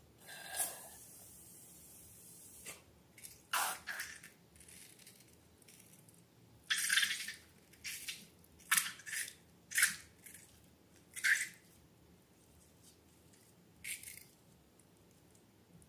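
Wet slime squishing and dripping in about ten short squelches with quiet gaps between them.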